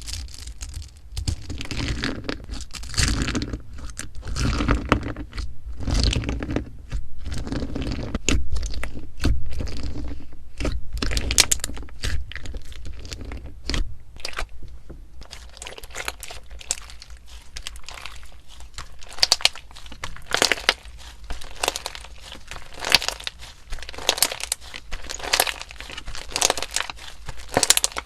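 Slime being squeezed and pressed by hand, making dense crackling and crunching with many small pops. In the first half the presses are heavier, with low thuds under the crackle; from about halfway on the crackles are lighter and quicker.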